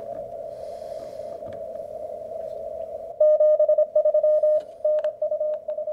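HF transceiver receiving on the 20 m CW band through its speaker: narrow-filtered band hiss as the dial is tuned, then, about three seconds in, a loud Morse code signal keyed as a steady tone in short and long beeps.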